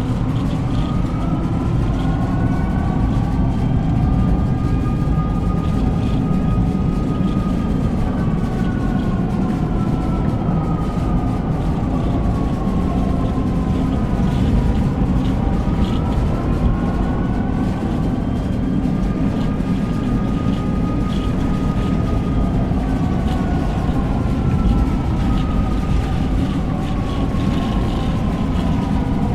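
Tornado warning siren wailing in two slow rise-and-fall cycles over a steady low roar of tornado wind.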